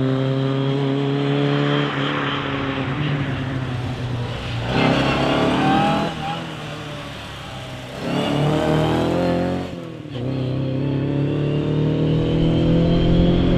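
Ford Cortina rally car's engine at high revs under hard driving: held high at first, backing off about six seconds in, then pulling up through the revs again, with a short break about ten seconds in like a gear change before climbing steadily once more.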